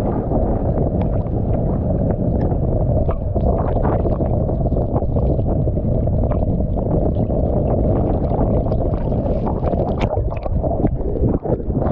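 Wind buffeting the microphone over choppy ocean water, with steady sloshing and many small splashes against a swimmer's camera.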